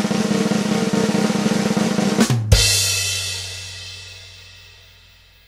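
Closing music sting: a fast snare drum roll that ends about two and a half seconds in on a final hit, which rings on and slowly fades out.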